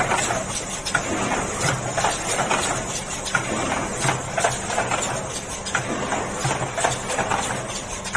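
Automatic airplane-box (die-cut mailer box) forming machine running: a steady, rhythmic clatter of its feeding and folding mechanism over a low motor hum.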